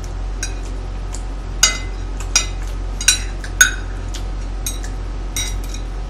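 Metal chopsticks and a metal spoon clinking and scraping against a ceramic plate while scooping up food: a string of irregular sharp clinks, loudest in the middle, over a low steady hum.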